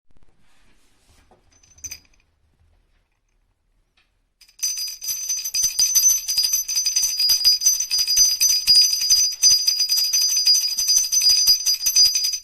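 A brief light jingle with faint handling about two seconds in, then from about four and a half seconds in, 45 mm round brass sleigh bells shaken continuously, jingling with a steady high ringing.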